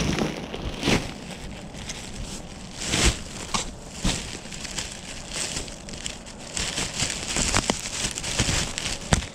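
Rummaging through stored belongings: irregular crinkling and rustling, with several sharp clicks and knocks.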